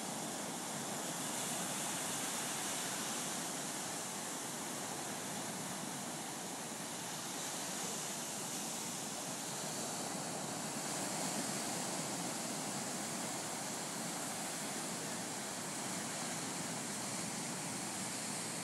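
Atlantic surf breaking and washing up a sandy beach: a steady rushing noise that swells and eases a little every few seconds.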